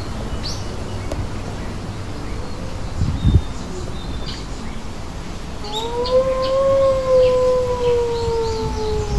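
A dingo howling: one long call starting about six seconds in, rising slightly and then sliding slowly down in pitch. Small birds chirp throughout, and there is a brief low thump about three seconds in.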